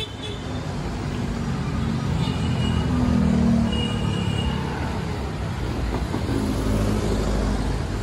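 Road traffic on a multi-lane city boulevard: cars and motorcycles passing close by, a steady engine and tyre rumble that swells as a vehicle goes past about three and a half seconds in.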